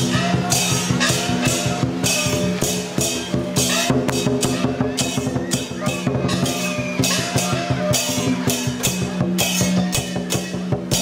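Dragon dance percussion: drums and clashing cymbals beating a fast, unbroken rhythm, with ringing tones that slide in pitch, as from gongs.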